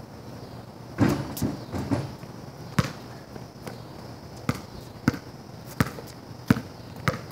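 A multicoloured ball being dribbled on concrete: about nine sharp bounces at an uneven pace.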